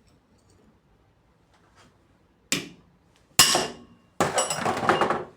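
Metal tools and parts striking a fan motor: two sharp knocks with a ringing tail, the second the loudest, then about a second of rapid metallic clattering and ringing.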